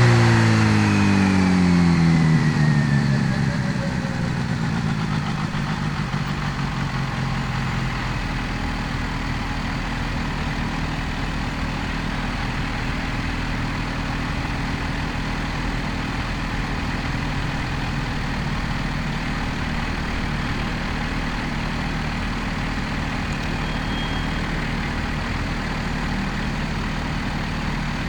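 Kawasaki Z H2's supercharged inline-four engine, its revs falling over the first few seconds with a high whine dropping with them, then idling steadily for the rest of the time.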